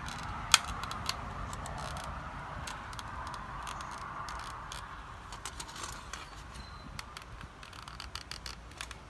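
Small clicks, taps and scrapes of hands handling the phone battery and the small parts of the speaker, with one sharp click about half a second in, over a steady background hiss.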